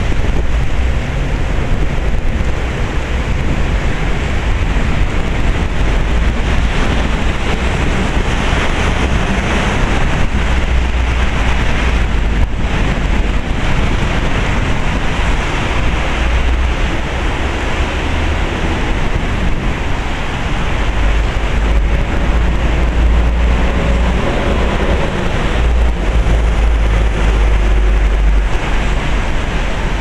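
Torrential typhoon rain pouring steadily, with wind rumbling on the microphone in gusts that swell for several seconds at a time.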